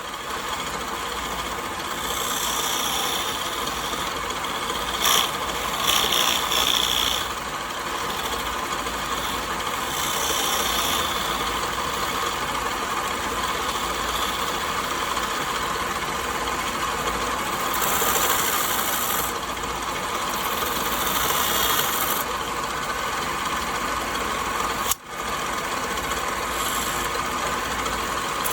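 A power tool running steadily as it works wood, with hissy scraping passes now and then. It cuts out for a moment near the end.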